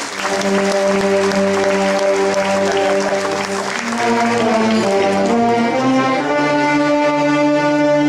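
Brass band playing a slow march in long, sustained notes, with crowd applause mixed in over the first few seconds.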